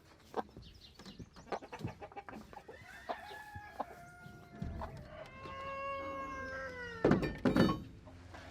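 Chickens clucking, then a rooster crowing: one long call a few seconds in that falls in pitch at its end. A loud burst of noise follows near the end.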